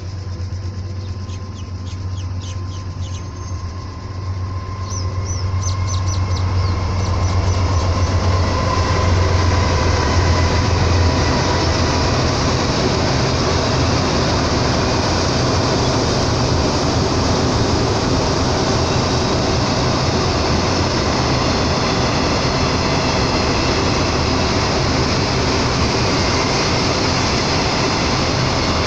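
Container freight train passing at steady speed: the low drone of a diesel locomotive (Class 26) over roughly the first ten seconds, giving way to the steady noise of the container wagons' wheels rolling on the rails.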